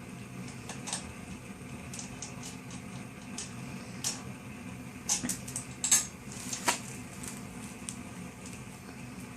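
Scattered clinks, knocks and light scrapes of hard parts being handled as a temporary support is taken out from under shimmed brickwork. The sharpest clatters come in a cluster about five to seven seconds in.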